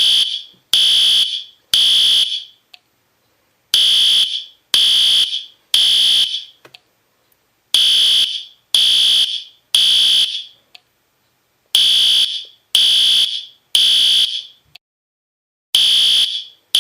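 Fire alarm evacuation signal sounding: high beeps about half a second long in groups of three, a second apart, each group repeating about every four seconds. This is the temporal-three pattern that calls for leaving the building.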